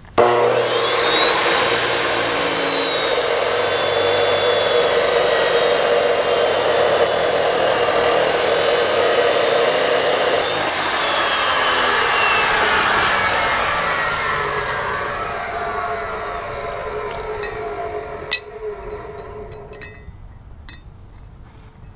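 Angle grinder grinding a cracked steel steering bracket clean for welding: it spins up, grinds steadily for about ten seconds, then is switched off and winds down with a falling whine.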